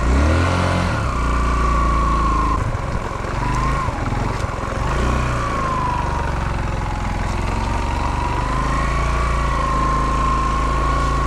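Dirt bike engine running slowly in first gear on a steep descent, its note uneven for a few seconds in the middle, with a high whine that drifts up and down in pitch.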